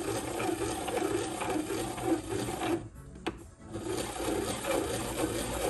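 Hand-cranked piston ring filer grinding the end gap of a compression ring. The steady rasping stops briefly about three seconds in, then starts again. The ring's ends are being shaved a little at a time to open the gap to the target clearance.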